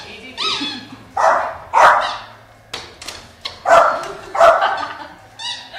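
Dog barking, four loud barks with shorter, quieter ones between, and a couple of high whines near the start and near the end.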